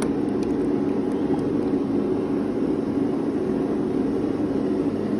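Steady low mechanical drone, like a fan or machine running, with a couple of faint clicks right at the start.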